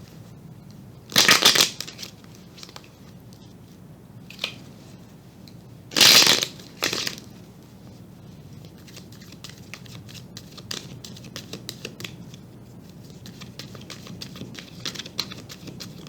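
Tarot cards being shuffled and handled: two short, loud riffles about one and six seconds in, then a long run of light card clicks and taps.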